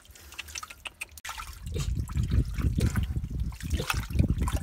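Hands splashing and churning shallow muddy water while scooping for small fish in a mud pit. Faint wet ticks at first, then from about two seconds in, louder irregular sloshing and splashing.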